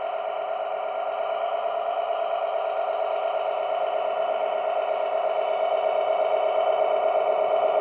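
Electric motor of a radio-controlled model vehicle whining at a steady pitch, gradually getting louder.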